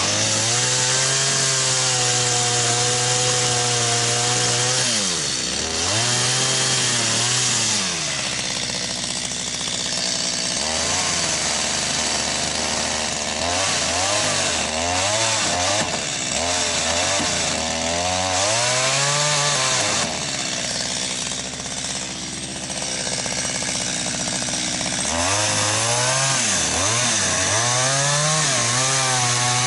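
Chainsaw cutting a rough notch into a log. The engine holds at high revs for the first few seconds, then revs up and drops back again and again as the cut goes on.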